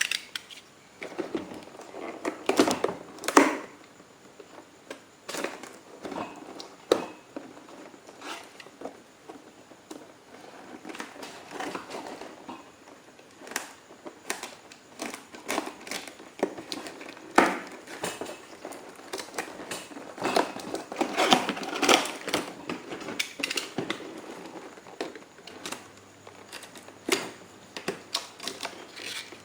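Cardboard box being opened and handled by hand: irregular scraping, tapping and crinkling, with louder bursts of handling a few times.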